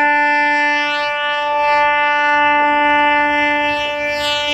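MV Karnafuli Express's ship horn sounding one long, steady blast. It comes on suddenly and holds a single unwavering pitch.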